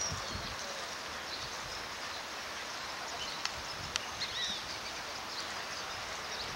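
Outdoor ambience: small birds chirping now and then over a steady hiss, with two brief clicks about three and a half and four seconds in.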